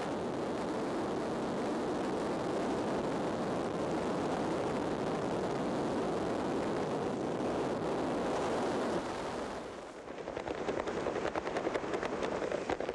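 Aircraft noise: a steady, even roar for about nine and a half seconds, which dips and gives way to a dense, rapid crackling near the end.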